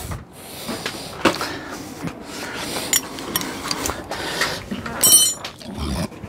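Scattered clicks and knocks of hand tools being carried and handled, with a short bright metallic jingle about five seconds in.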